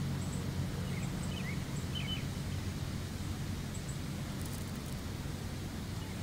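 Outdoor ambience by a lake: a steady low rumble with a few faint, short bird chirps about one to two seconds in.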